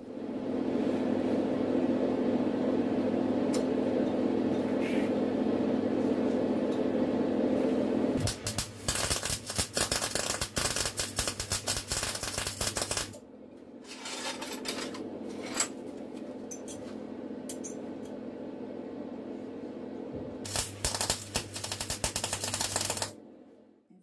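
MIG welder tack-welding steel cutlery: the arc sputters and crackles in three spells, a long one about a third of the way in, a short one soon after, and another near the end. A steady hum fills the stretches before and between the welds.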